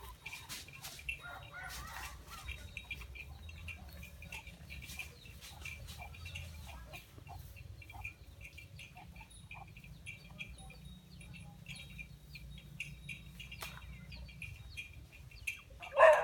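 Chickens clucking softly over a steady high chirping and a low rumble of wind. One much louder call comes near the end.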